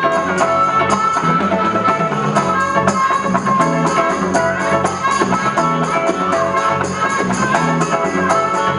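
Live band music: a harmonica holds and bends notes over strummed acoustic and electric guitars, with a steady beat on hand drums.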